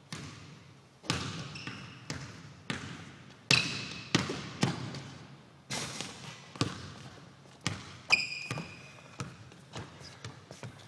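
A basketball bouncing and striking hard surfaces: about a dozen irregular thuds, each with a short echoing tail, and a few short high squeaks among them.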